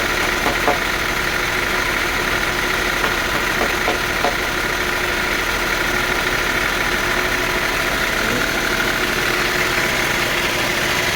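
Sawmill machinery running steadily with an engine-like drone and a steady whine, with a few light knocks in the first half.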